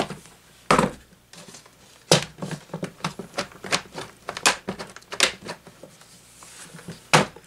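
Plastic housing and grille of a Holmes HAWF2021 twin window fan being pulled apart and handled: a string of irregular plastic clicks and knocks, the sharpest near the end.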